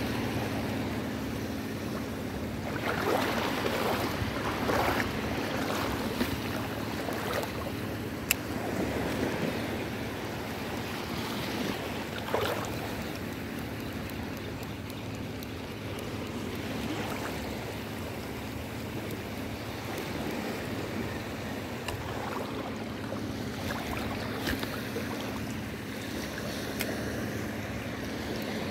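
Shallow sea water lapping and splashing, with wind on the microphone and a steady low hum underneath. A few louder splashes come about three to five seconds in and again around twelve seconds, and there is one sharp click about eight seconds in.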